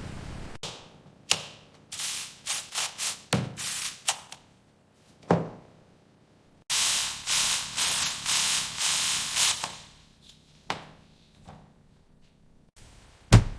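A series of short hissing bursts and sharp clicks, with a longer hiss of about three seconds in the middle, like spraying or air-blasting sounds on a factory line.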